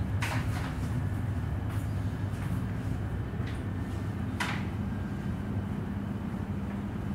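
Suburban electric train running, heard from inside the passenger carriage: a steady low rumble and motor hum, with a few brief high-pitched hisses, the strongest about four and a half seconds in.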